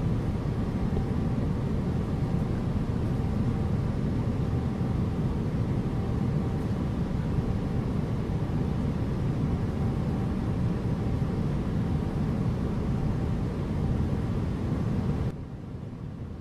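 Airliner cabin noise: a steady low rumble with a faint hum, dropping to a quieter level about fifteen seconds in.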